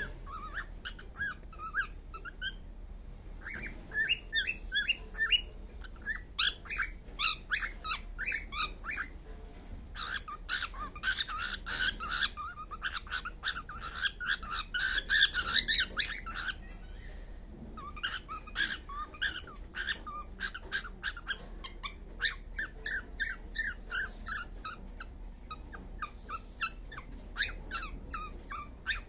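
Baby pied cockatiel making long runs of quick, short, high chirps, several a second, with brief pauses between runs.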